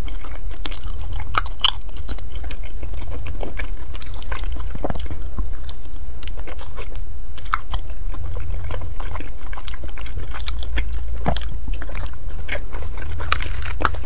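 Close-miked chewing of soft, doughy food, with scattered irregular wet mouth clicks, over a steady low hum.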